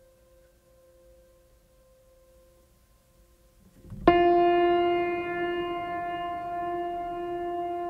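Background music: a faint held tone, then about four seconds in a loud sustained note with many overtones comes in suddenly and holds.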